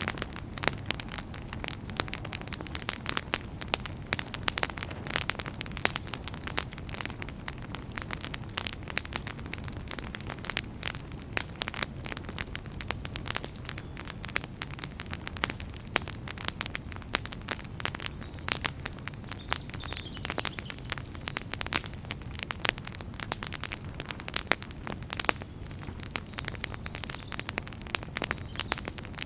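Wood fire burning in a fireplace: a steady low rumble of flames with dense, irregular crackles and pops.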